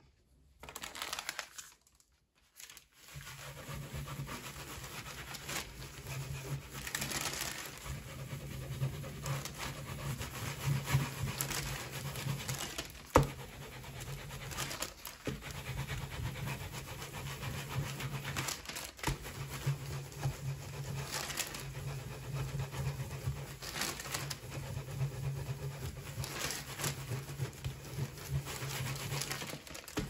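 Japanese baren rubbed over tissue paper on a sheet laid on an inked woodblock, a continuous scratchy rubbing and paper rustle that rises and falls with each stroke. It starts with a brief rustle of paper being handled and has one sharp click partway through.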